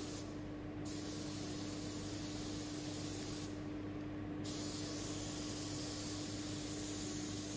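Gravity-feed paint spray gun hissing steadily as it sprays a coat of filler. The hiss cuts out briefly twice, near the start and about halfway through.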